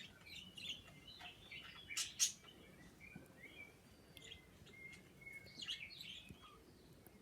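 Pet birds chirping softly in short scattered notes, with a couple of sharp kissing sounds about two seconds in and a brief held whistle near the middle.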